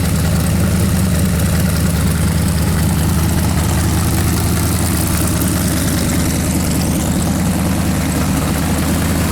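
383 V8 engine running on an engine stand, idling steadily.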